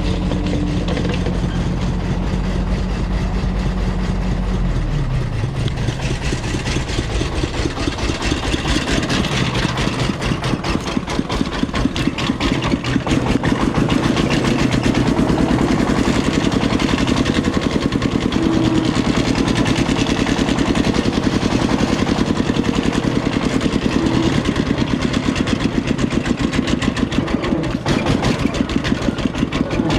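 Heavy diesel engine running: a steady low idle, then about five seconds in it changes to a fast, even pulsing beat that grows louder around ten seconds in and holds.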